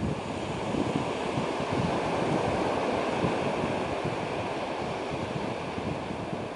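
Small surf breaking and washing up a sandy beach, swelling about two seconds in, with wind buffeting the microphone.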